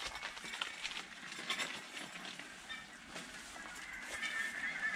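Short rustles and knocks of a pop-up tent's nylon fabric and frame being handled, with footsteps on wet grass. A bird calls in the background near the end.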